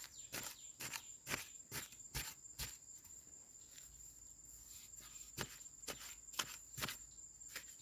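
Pointed metal digging bar jabbing and scraping into dry soil, one stroke about every half second, pausing in the middle and picking up again for a few strokes near the end. A steady high insect trill runs underneath.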